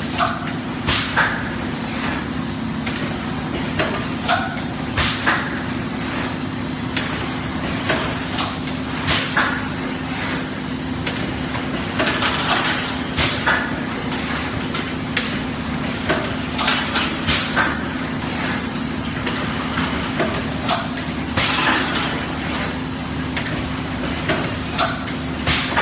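Two-cavity PET bottle blow molding machine running: a steady hum under repeated sharp clunks and short bursts of air hiss, coming in clusters about every four seconds with each machine cycle.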